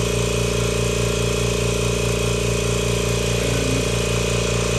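Kobalt 26-gallon electric air compressor running steadily, its motor and pump filling the tank under a load that has climbed to about 1260 watts.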